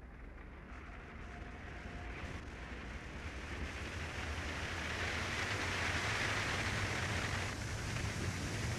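Road and wind noise from a moving Ford Fiesta ST: a steady rushing hiss of tyres and air over a low rumble, growing steadily louder.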